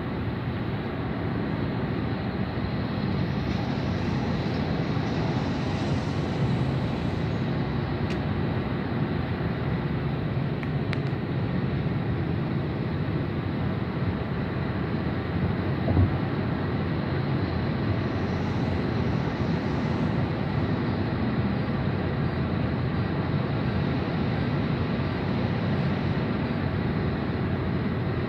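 Steady road and engine noise heard from inside a car moving at highway speed, swelling briefly twice, with a single short knock about halfway through.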